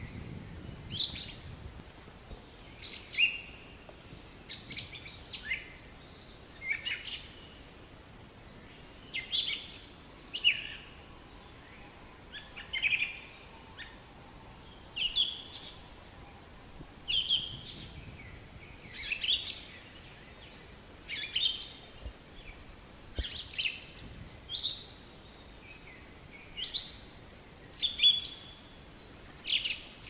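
Black-capped chickadee calling: short, high calls, each sliding down in pitch, repeated about every two seconds.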